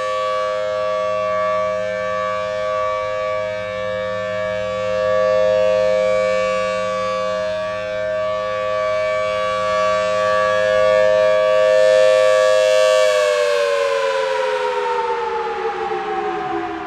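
Federal Signal Thunderbolt 1000T B-Series outdoor warning siren sounding its full-alert steady tone: two pitches sounding together, swelling slightly up and down in loudness. About thirteen seconds in, it begins winding down, the pitch falling steadily as the rotor slows at the end of the signal.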